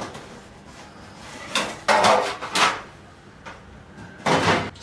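Metal baking tins knocking and clattering as they are handled and set down: a few sharp knocks in the middle and one more near the end.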